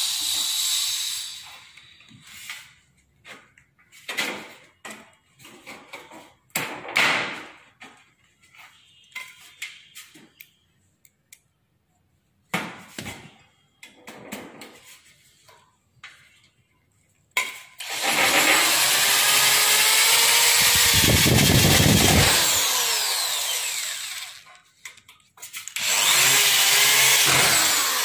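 Corded electric drill working at a joint of a metal frame channel. Handling knocks and clicks come first, then the drill runs for about seven seconds, its pitch sliding down and up as it loads, and starts again shortly before the end.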